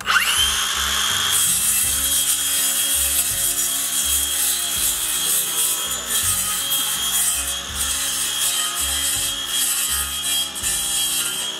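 Handheld circular saw starting with a quick rising whine, then running steadily as its blade cuts through the bony, armored body of a plecostomus (armored catfish).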